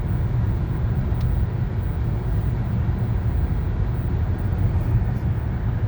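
Steady road noise and engine rumble inside a moving car's cabin.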